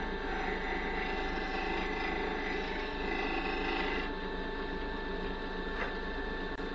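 Wood lathe running with a negative rake scraper cutting lightly against the spinning cherry to take a sharp edge off. The scraping hiss stops about four seconds in, leaving the lathe's steady hum.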